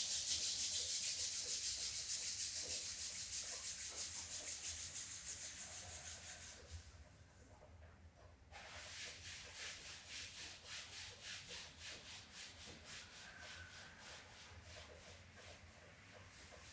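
Palms rubbed briskly together in quick, even strokes, then after a short pause hands rubbing the lower back over a T-shirt at the kidneys, softer, a qigong self-massage to warm the kidney area.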